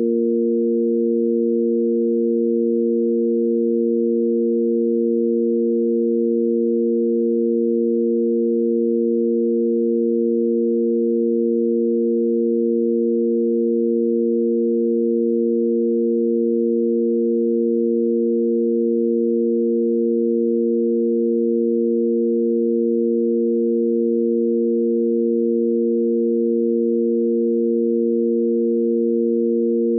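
Sine-wave tanpura drone in A#: three pure electronic sine tones on the root, fifth and octave, held perfectly steady with no attack or change.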